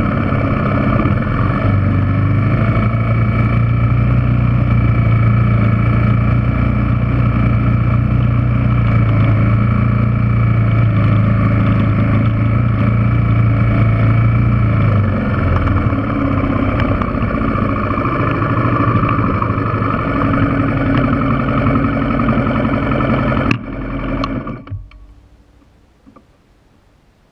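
Yamaha TW200's single-cylinder four-stroke engine running steadily as the motorcycle climbs a rocky trail, its note dipping briefly about halfway through. Near the end a click, then the engine cuts off and winds down quickly.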